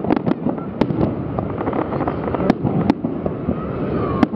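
Aerial fireworks display: sharp bangs of shells bursting at irregular intervals, about half a dozen, over a continuous din of further bursts.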